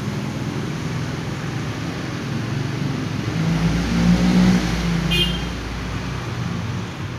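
A motor vehicle's engine passes, swelling about halfway through and then fading, over a steady hiss. A brief high sound comes about five seconds in.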